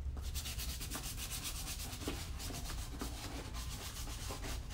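Small brush scrubbing cleaner into a black leather boot, in rapid, even back-and-forth strokes.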